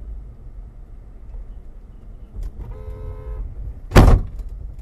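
Low in-cabin rumble of a car driving on a snowy road. About three seconds in a horn honks briefly, and about a second later there is a sudden loud bang against the car as snow sprays up beside it.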